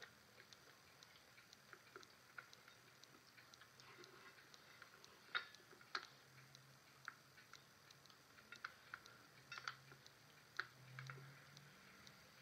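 Faint, irregular little clicks and crackles of hands squeezing and rolling a sticky oat-and-seed mixture into a ball, a few sharper ticks standing out among them.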